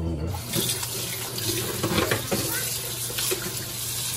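Kitchen faucet turned on about half a second in, then water running steadily into a stainless steel sink, splashing over a walleye being rinsed by hand.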